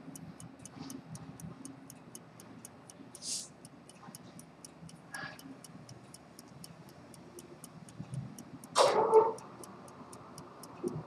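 Antique fusee-chain pocket watch movement ticking, with rapid, even beats. A few brief handling clicks fall over it, and a louder sharp clatter comes about nine seconds in.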